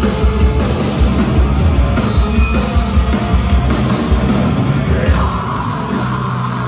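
A metalcore band playing live and loud: heavily distorted electric guitars and bass over steady pounding drums. A held higher note comes in about five seconds in.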